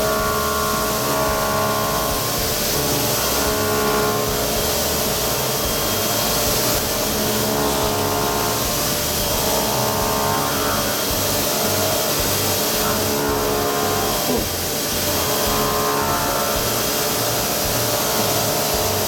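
Background music with chords changing every second or two, laid over a steady hiss from a CNC machine cutting weld material with a milling cutter.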